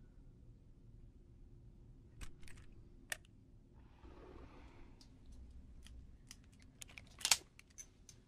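Revolver being handled: scattered metallic clicks, then a quicker run of clicks with one loud click near the end as the cylinder is swung open. A soft rustle about four seconds in.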